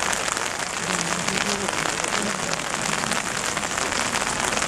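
Steady rain falling: a dense hiss made of many fine drop ticks, even throughout. Faint voices can be heard low underneath.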